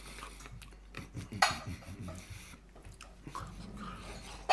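Quiet eating sounds: chewing and mouth noises as fries are eaten by hand, with scattered small clicks and one sharper click about one and a half seconds in.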